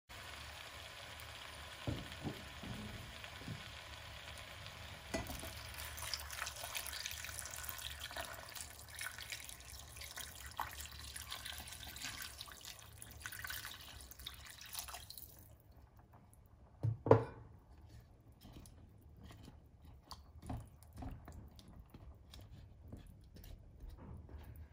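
Water poured into a pot of chopped vegetables, a steady splashing pour that stops about fifteen seconds in. A loud knock follows, then light clicks of a wooden spoon stirring the vegetables in the water.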